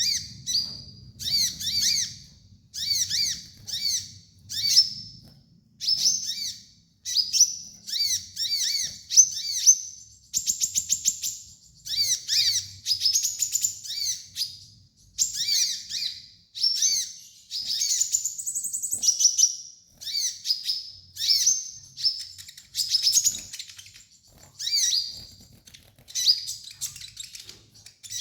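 Kolibri ninja, a sunbird, singing a rapid run of short, high-pitched chirping phrases about once a second, with a fast trill about ten seconds in and a longer arching phrase later on.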